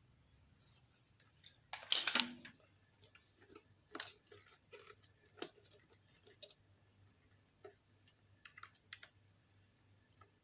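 A short rasping, scraping noise about two seconds in, then scattered light clicks and taps of small hard parts being handled, over a low steady hum.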